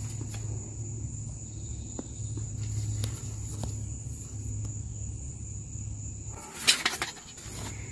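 Insects drone steadily in a high thin tone over a low rumble. About two-thirds of the way through, a compound bow is shot from full draw with a sharp, loud snap of the string.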